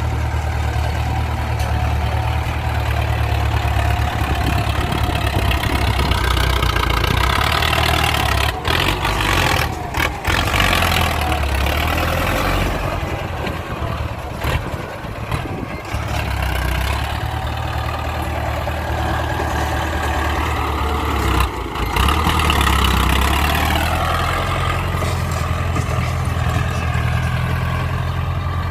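Ford 6610 tractor's four-cylinder diesel engine running loud and steady while working the field under load, dragging soil. Its pitch shifts as the load changes and falls noticeably about two-thirds of the way through.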